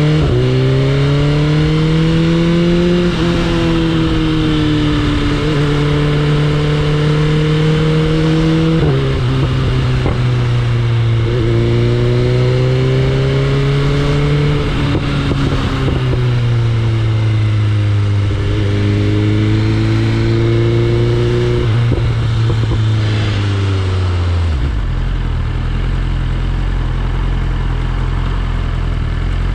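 BMW S1000RR's inline-four engine on the move, its pitch climbing under throttle and dropping back in steps several times as the rider shifts and rolls off. About 25 seconds in it falls to a steady, lower idle.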